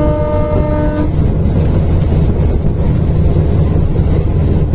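Train horn sounding a steady tone that cuts off about a second in, over the loud, steady low rumble of a running train.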